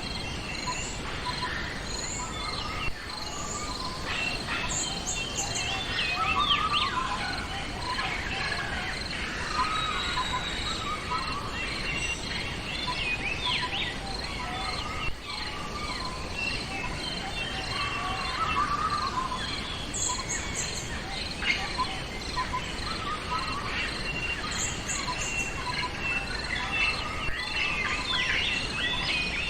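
Several wild birds chirping and calling in overlapping short phrases, over a steady high insect drone and a constant outdoor hiss.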